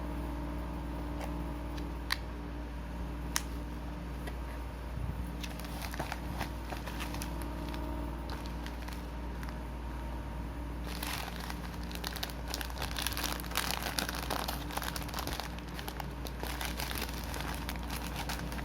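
Plastic food packaging crinkling and crackling as it is handled: a few single clicks at first, then a dense stretch of crinkling past the middle, over a steady low hum.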